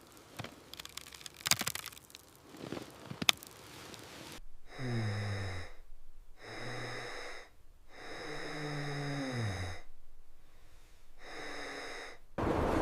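A few seconds of faint clicks and rustling, then four drawn-out, wheezing voiced breaths or groans, each falling in pitch.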